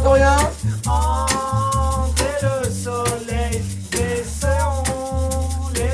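A group of voices singing a song together in unison over a bass line, with a maraca shaken on a steady beat about twice a second.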